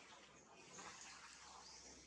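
Near silence: faint outdoor background with a few soft, short, high-pitched chirps.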